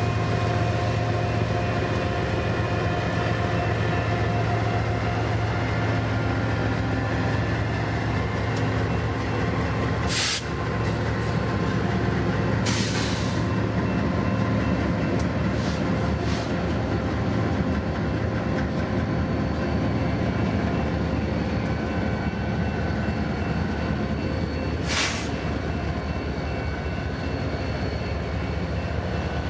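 A string of BNSF diesel locomotives passing close by, their engines running with a steady low drone over the rumble of wheels on rail. A few brief, sharp high noises cut through about a third of the way in and again near the end.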